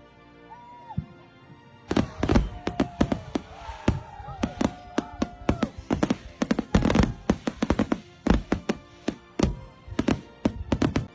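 Fireworks going off: a quick, irregular string of sharp bangs and cracks that starts about two seconds in, with a few whistling tones among them.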